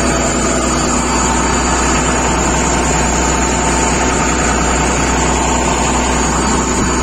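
Fishing boat's engine running steadily underway, a constant unbroken drone.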